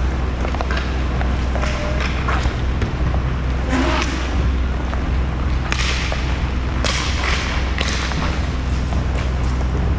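Roller hockey play on a sport-court rink: a steady low rumble with several sharp clacks and knocks of sticks and puck, the loudest about four seconds in and then roughly once a second from six to eight seconds.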